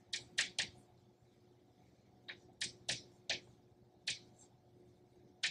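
Chalk writing on a blackboard: a run of sharp, irregular taps as the strokes land, about nine in all, with a pause of over a second after the first three.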